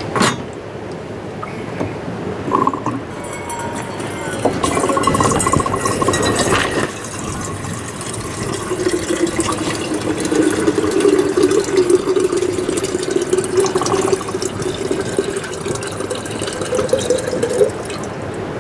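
Hot water poured steadily into a cup or coffee dripper for about nine seconds, the pitch rising slightly as it fills, after a few clinks and knocks of handling utensils.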